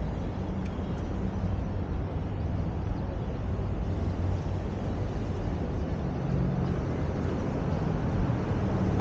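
Steady city traffic and road noise from a car driving through downtown streets: engine hum and tyre rumble, with a low hum that grows a little stronger about six seconds in.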